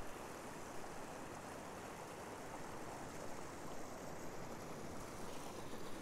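Steady rush of river water pouring over small rock cascades and waterfalls.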